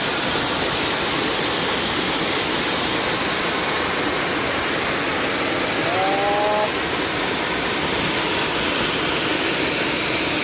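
Monsoon flash flood in a hill stream: a muddy torrent rushing steadily and loudly. A short pitched call cuts through briefly about six seconds in.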